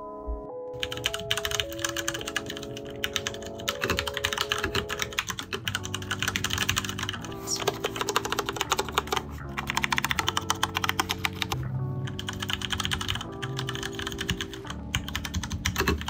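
Typing on a Leopold FC750R mechanical keyboard with Cherry MX Brown switches: a fast, continuous clatter of keystrokes starting about a second in, with a couple of brief pauses. Background music plays underneath.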